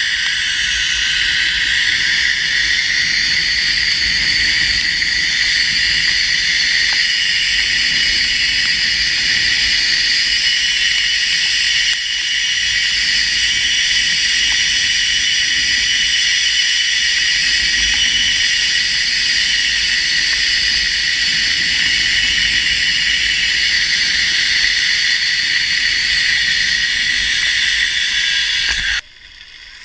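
Zipline trolley pulleys rolling fast along a steel cable: a loud, steady, high-pitched whine made of several tones over a low rumble. It cuts off suddenly near the end.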